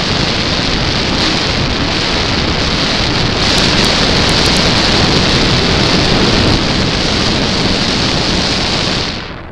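Wind and propeller noise on a radio-controlled model plane's onboard camera microphone in flight: a steady rush of noise that grows louder a few seconds in and then drops away sharply near the end.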